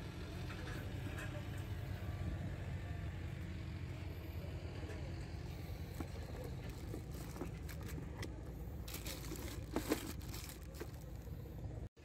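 A steady low rumble with light rustling and knocks of things being handled, busiest about nine to ten seconds in; the sound cuts off suddenly near the end.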